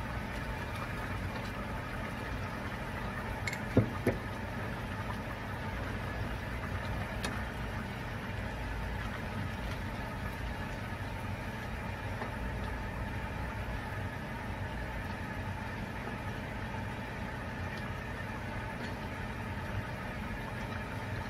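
Pork adobo simmering in a frying pan and being stirred with a spatula, over a steady low hum. Two sharp knocks, a spatula against the pan, come close together about four seconds in.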